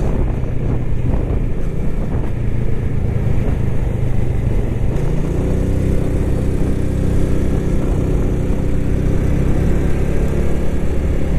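Yamaha Lagenda 115ZR underbone motorcycle running at a steady cruise, its engine note mixed with wind and road rush. About halfway in the engine tone settles a little higher and clearer.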